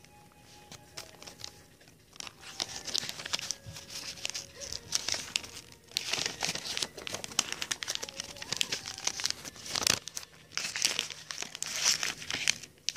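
Crinkly wrapping material being handled and crumpled, a dense crackling that starts about two seconds in, with one sharper crackle near the end.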